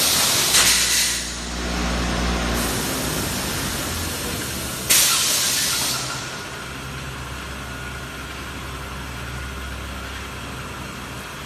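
Pneumatic cylinders on the mesh-drop section of an automatic reinforcing mesh welding machine hiss in sharp blasts of compressed air. Two come right at the start and one about five seconds in, each lasting about a second, over a steady low machinery hum.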